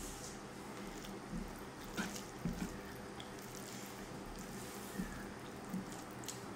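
Fingers squishing and mixing rice with curry on a plate: several soft, wet squelches, the loudest about two and a half seconds in, over a steady low hum.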